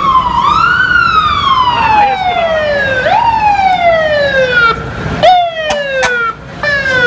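Fire engine siren wailing: each cycle rises quickly and then falls slowly over about two seconds, repeating as the truck approaches and passes. A couple of sharp clicks come near the end.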